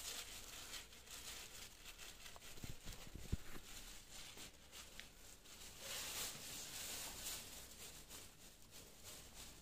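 Faint rubbing and rustling of gloved hands smoothing and molding a setting plaster of Paris leg cast around the ankle, with a soft knock about three seconds in.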